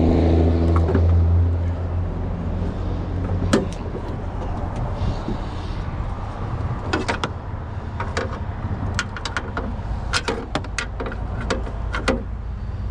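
Steady low engine drone, strongest for the first few seconds and then quieter, with scattered sharp clicks and knocks of parts and tools being handled.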